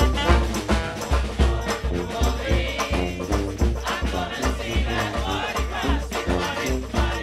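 Brass band music with a steady, heavy bass beat, about two beats a second, and busy horn lines above it.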